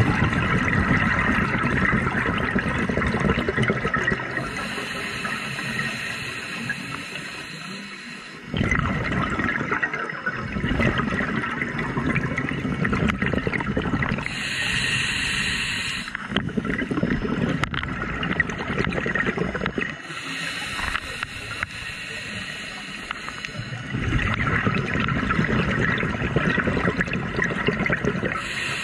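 Scuba regulator breathing underwater: hissing inhales and bubbling exhales that swell and ebb in several slow breath cycles.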